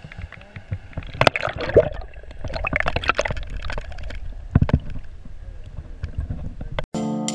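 Water sloshing and gurgling around a camera held at and just under the lake surface, with scattered knocks and splashes. Near the end it cuts out briefly and music with guitar begins.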